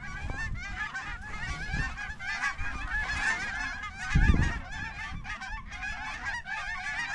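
A large flock of small geese calling overhead: a dense chorus of short, high, rising yelps. About four seconds in, a brief low thump, the loudest moment.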